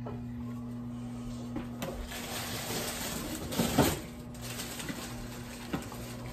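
Steady electric hum of a kitchen appliance, which switched on just before. Over it come rustling and a louder clatter about two-thirds of the way through, then a few light knocks.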